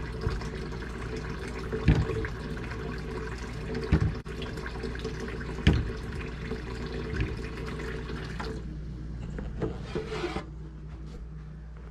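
Kitchen faucet running into a sink, with a few short knocks. The water is turned off about eight and a half seconds in, leaving a quieter background.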